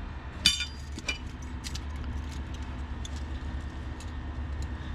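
A sharp metallic clink about half a second in, ringing briefly, then a few light clicks and taps of small metal tools being handled, over a steady low hum.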